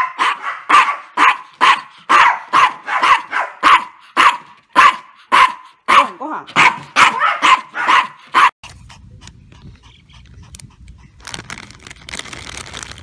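Maltese barking rapidly and insistently, about two sharp barks a second: excited demand barking at mealtime. The barking cuts off abruptly about eight and a half seconds in, leaving only faint background noise with a soft rustle.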